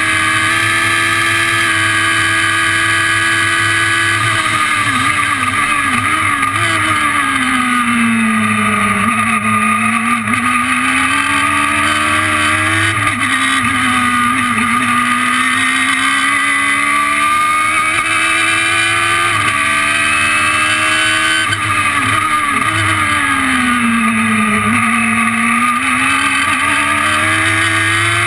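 Radical SR3 race car's engine heard from the cockpit at speed on track. The revs sag with a few quick dips about five seconds in and fall to a low around nine seconds, then climb again with a gear change near thirteen seconds. They fall again around twenty seconds and rise toward the end: the car braking and downshifting into corners, then accelerating out.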